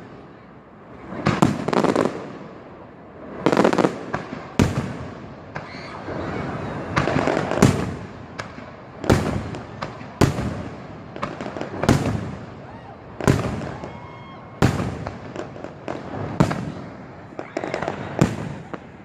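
Fireworks display: aerial shells bursting in a steady run of loud bangs, roughly one a second, each trailing off in an echo.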